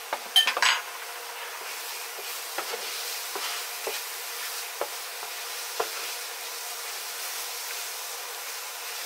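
Onion, tomato purée and spice paste sizzling in a frying pan while a wooden spatula stirs it, with short scrapes and taps of the spatula against the pan about once a second.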